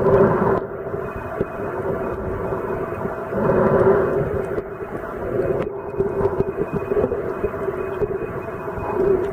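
Steady mechanical drone heard underwater: a continuous hum with one strong low tone and fainter higher tones over a noisy wash. It swells slightly a few seconds in.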